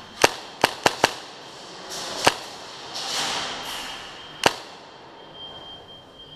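Airsoft guns firing single shots: six sharp cracks, four in quick succession in the first second, then one more about two seconds in and another past four seconds.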